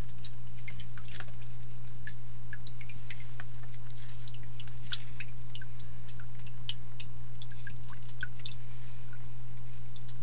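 A steady low hum from aquarium equipment, with scattered light drips and clicks of water.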